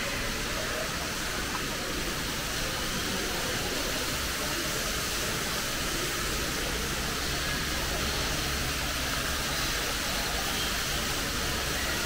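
Steady hissing background noise with no changes in level, and a faint short bird chirp about ten seconds in.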